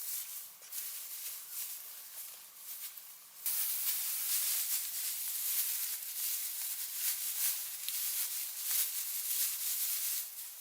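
Dry rustling and crackling: a steady hiss made of many small clicks. It gets suddenly louder about three and a half seconds in and drops back just before the end.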